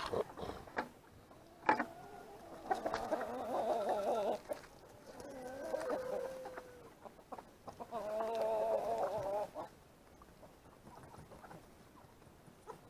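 A flock of chickens, mostly roosters, calling: three drawn-out, wavering calls about three, six and eight seconds in, the middle one trailing off downward. Two sharp knocks sound in the first two seconds.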